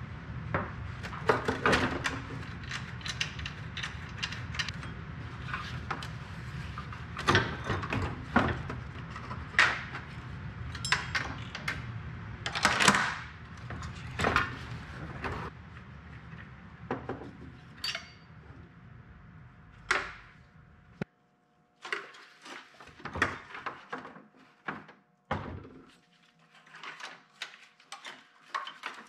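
Hand tools and metal parts knocking and clanking at irregular intervals while the stock engine of a small vintage snowmobile is unbolted for removal. A low steady hum underneath stops suddenly about two-thirds of the way through.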